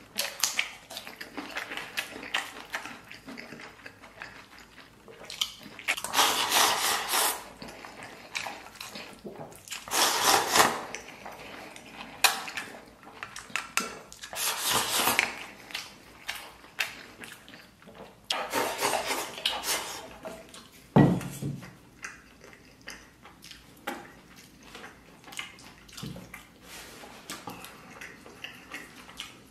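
Eating at close range: wooden chopsticks clicking and scraping against a stainless steel bowl as rice is shoveled into the mouth, with several loud wet rushes of eating noise a second or so long and chewing. A single dull knock comes about two-thirds of the way through.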